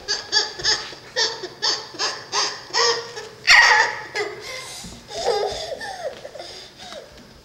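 A toddler laughing: a quick run of short bursts, about four a second, for roughly three seconds, then one louder burst of laughter that tails off into softer vocal sounds.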